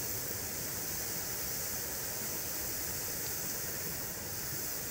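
Boondi (drops of besan batter) frying in a wide pan of hot oil: a steady sizzle.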